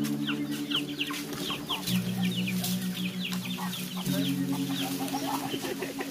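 Chickens peeping and clucking: many short high chirps, several a second, thinning out toward the end. Under them run steady low tones that shift pitch twice.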